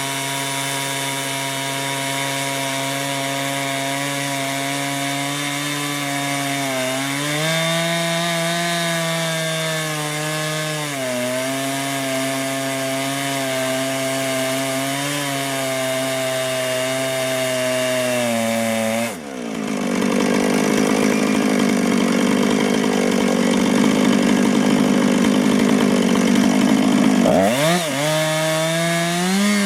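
Chainsaw running under load in a chainsaw mill, ripping a cedar log into planks; the engine pitch dips and recovers several times as the cut goes on. About two-thirds of the way through, the sound turns suddenly rougher and noisier, with a quick dip and rise in pitch near the end.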